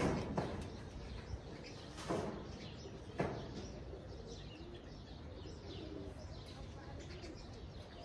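Faint birds chirping with some cooing. Three short knocks fall in the first few seconds, the loudest about three seconds in, while dry date-palm fronds are handled on the aviary's wooden roof frame.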